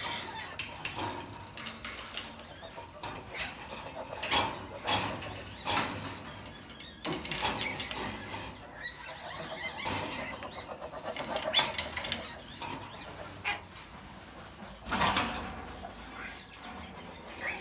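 Irregular clicks, knocks and scrapes from a wire-mesh cage holding an Asian palm civet, rattling as it is handled and as the animal moves inside.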